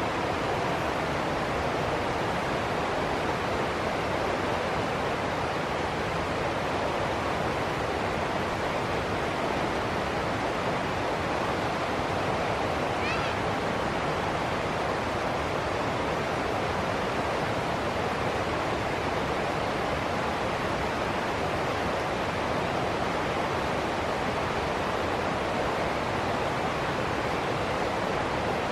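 Steady rushing water, an even hiss without breaks or swells. One brief faint high-pitched sound about halfway through.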